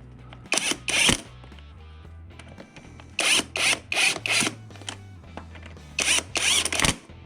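Cordless power driver running the flywheel bolts in, in short bursts of a few tenths of a second, about nine in three groups, over low background music.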